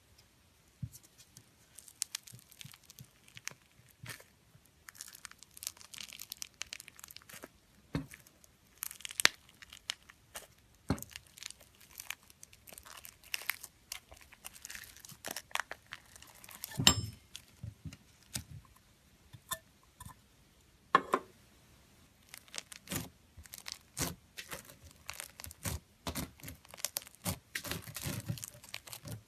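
Slime being squeezed and stretched by hand, giving off irregular crackling pops and clicks, with a few louder pops.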